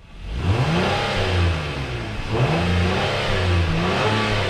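The 2022 Acura MDX A-Spec's naturally aspirated 3.5-litre V6, heard at the tailpipes, revved three times. Each rev rises in pitch and falls back toward idle.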